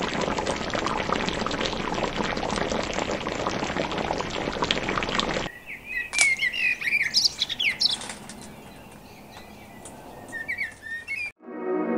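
Chicken and bell pepper stew bubbling in a pan, a dense crackle of small pops that stops abruptly about five and a half seconds in. After that, birds chirp in short, quick, sliding calls.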